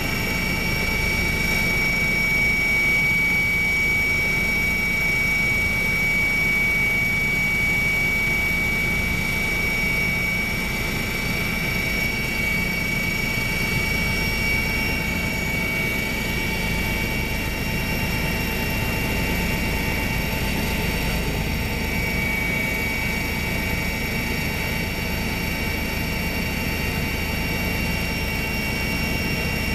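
Helicopter running in steady flight, heard from aboard: a constant high whine over a low rumble, unchanging throughout.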